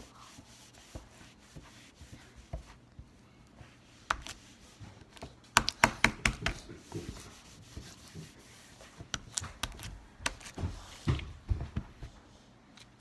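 Handling noise close to the microphone: a scatter of sharp clicks, taps and light knocks, in two busy spells, about four to seven seconds in and again around nine to twelve seconds.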